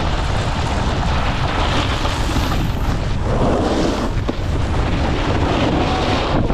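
Wind buffeting the microphone of a camera moving fast downhill, with the steady hiss and scrape of snowboards sliding on groomed snow. The scraping swells about three seconds in, as a board digs in harder.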